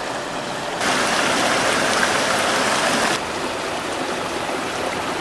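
Creek water rushing and splashing through a man-made wooden channel, a steady rush of water. It gets louder about a second in and drops back about three seconds in.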